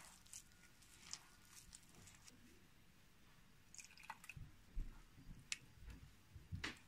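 Faint wet squelching and dripping of a hand squeezing and mixing a rice-flour and date-molasses batter in a bowl. The squelches come more often in the second half.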